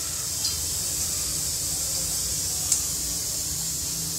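Steady hiss of a lit gas stove burner heating a pan of oil, with a faint low hum and one small click a little past halfway.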